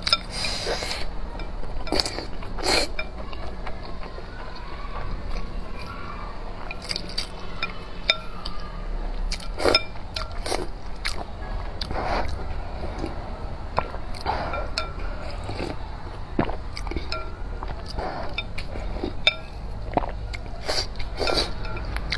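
Close-up eating sounds: slurping spicy sweet potato glass noodles and broth, chewing, and wooden chopsticks clinking on a porcelain bowl, with many short sharp clicks scattered throughout.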